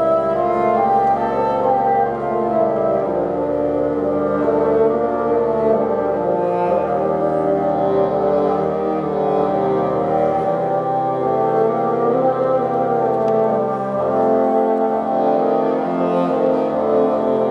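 A quartet of bassoons playing classical music together, holding sustained notes in several parts at once while lines move above and below them.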